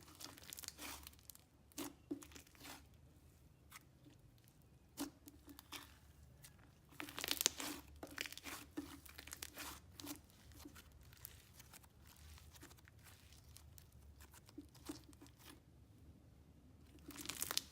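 Thick butter-textured slime with crushed packing-peanut foam bits being squeezed and stretched by hand, giving soft scattered crackles and crunches. The crackling gets louder in a burst about seven seconds in and again near the end.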